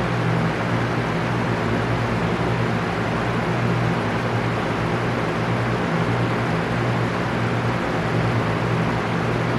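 Electric fan running steadily: an even whoosh of moving air with a low, unchanging motor hum underneath.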